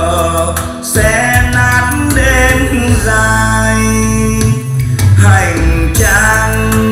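A song with a singing voice and strong bass, played at a loud, steady level through a Pioneer five-piece mini hi-fi system's two three-way speakers.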